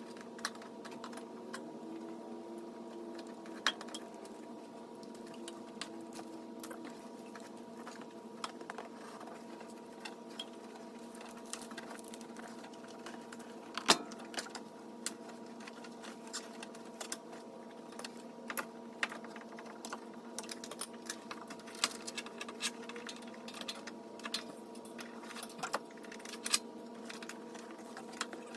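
Scattered light clicks and taps of hand work and tools on a car, irregular and quickening towards the end, with one sharp knock about halfway through, over a steady hum.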